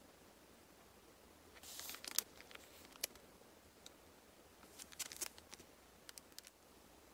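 Clear plastic sleeve of a sticker pack crinkling and clicking as it is handled, in two short bursts about two seconds and five seconds in, with a few light ticks between and after.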